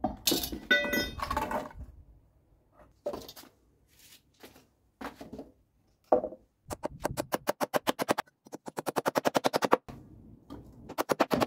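Hammer striking nails into wooden planks in quick runs of about ten blows a second, with a few metal clinks and knocks about a second in.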